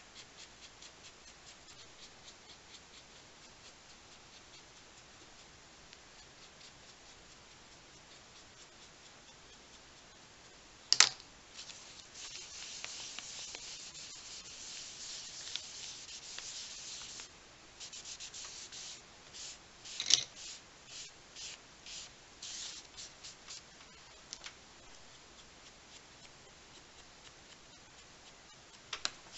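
A baby wipe loaded with Derwent Inktense blue pencil being rubbed over a paper journal page: a steady scrubbing hiss, then separate strokes about one or two a second. Before that, faint quick scratching as the pencil colours onto the wipe, and two sharp clicks stand out, about eleven and twenty seconds in.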